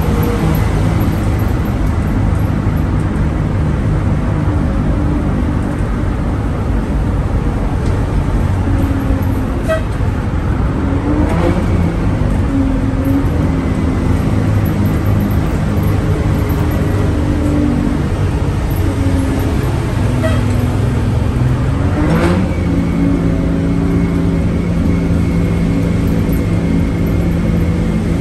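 School bus's straight-piped diesel engine running at freeway cruising speed, heard from inside the bus along with road noise. Twice, about 11 and 22 seconds in, its note sweeps and settles at a new pitch.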